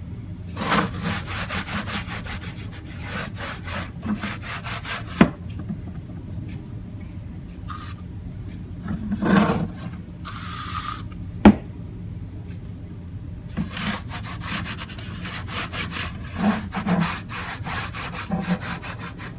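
Lemon Pledge aerosol furniture polish sprayed in a short burst and then a longer hiss of about a second, among repeated cloth strokes wiping the polish over a tool case. There are two sharp knocks.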